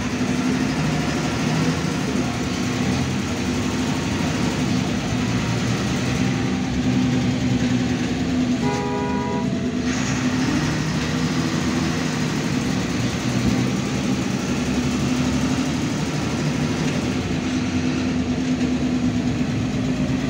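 Cabin noise of a MAN A74 Lion's Classic city bus under way: the diesel engine's steady low drone over road noise. A short horn toot sounds about nine seconds in.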